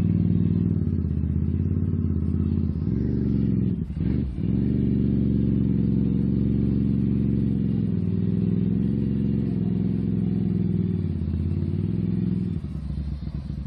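ATV engine running at steady raised revs, with a brief dip about four seconds in, then dropping back to a lumpy idle near the end.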